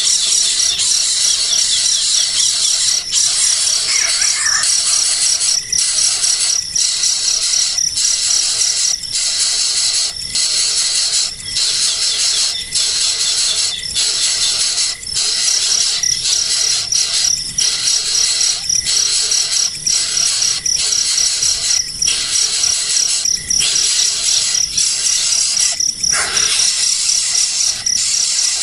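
Baby birds begging with repeated high-pitched squealing calls, over a steady, fast-pulsing insect trill.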